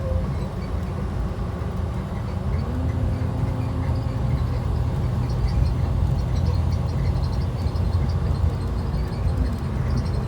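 Cabin sound of a 2012 IC RE school bus under way, its rear-mounted MaxxForce DT diesel engine running with a steady low rumble; the engine note rises about two and a half seconds in and drops back near the end. Light rattling from the bus body around the middle.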